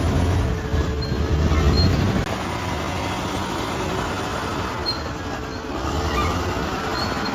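Bulldozer working, its diesel engine running with a low drone that eases after about two seconds into a steady grinding noise of the machine and its tracks. Short high squeals, typical of steel crawler tracks, come in now and then and more near the end.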